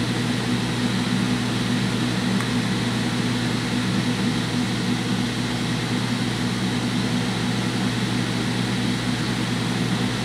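Cooling fans of a homebuilt six-tube 3-500Z linear amplifier running steadily, with a low steady hum beneath them, while the amplifier is held keyed at about 1200 watts.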